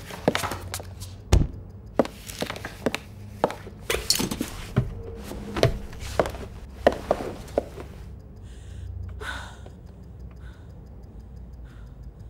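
Irregular footsteps and knocks on a hard floor and desk as a tall stack of paper is carried and set down, with one heavy thud about a second and a half in. It goes quieter after about eight seconds.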